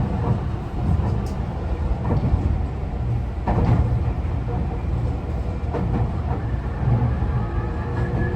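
Running sound inside a car of a Tobu 50090 series electric train: a steady low rumble of wheels on rail with a few sharp knocks over rail joints. A faint motor whine comes in near the end, from a car whose traction motors give an unusual, slightly different sound from the rest of the class.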